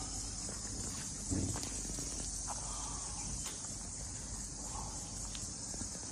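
Steady high-pitched insect chirring, with a few faint clicks and a soft low thump about a second in.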